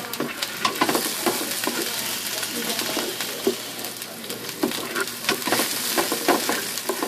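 Chopped garlic and red onion sizzling in hot oil in a frying pan, with a spatula stirring and scraping against the pan in short knocks. The aromatics are being sautéed until lightly browned.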